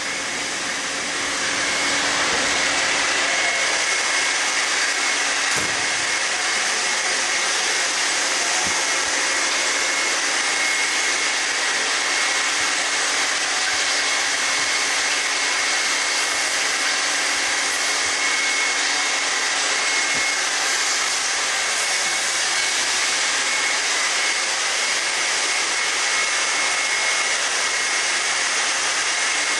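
Steady, loud hiss with a thin high whine running through it, swelling slightly about a second in and then holding even.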